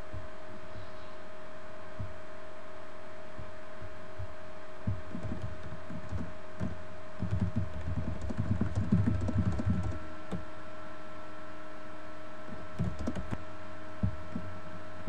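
A steady electrical hum with a faint steady tone. About seven seconds in comes a run of irregular low thumps, the loudest part, with a few faint clicks around it.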